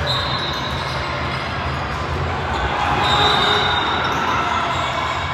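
Basketball game in a gymnasium: a ball bouncing on the court amid an echoing din of play, with short high squeaks right at the start and again about three seconds in.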